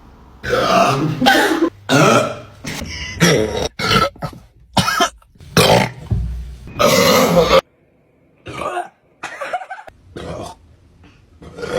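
A person burping over and over, about ten burps of varying length in quick succession, brought up by gulped carbonated Sprite.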